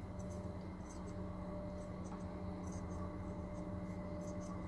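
Faint, irregular light scratching and ticking of a black threaded adapter being turned by hand into a spark plug hole in a BMW N62 cylinder head, over a steady low hum.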